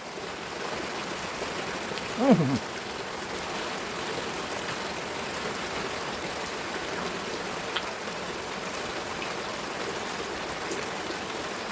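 A steady, even hiss of background noise, with a short hummed vocal sound about two seconds in and a faint click near eight seconds.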